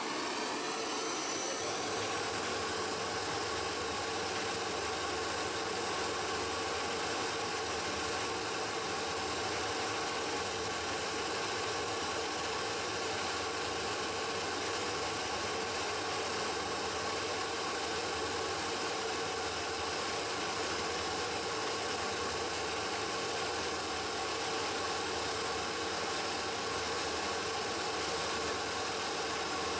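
Hand-held gas torch burning steadily, its flame heating a fluxed steel part to tin it with solder.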